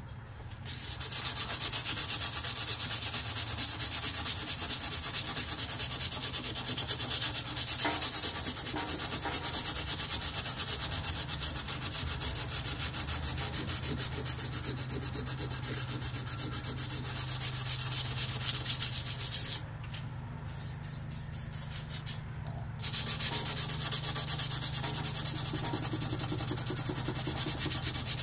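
Sandpaper rubbed by hand along a steel KA-BAR knife blade in quick back-and-forth strokes, a steady scratchy hiss. It stops for about three seconds roughly two-thirds of the way through, then starts again.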